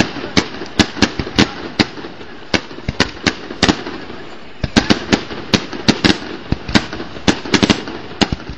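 Fireworks going off: a rapid, irregular string of sharp bangs, roughly two or three a second, with a brief lull about four seconds in.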